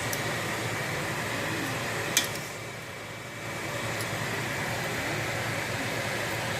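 Steady hum and hiss like a running fan, with one sharp click about two seconds in.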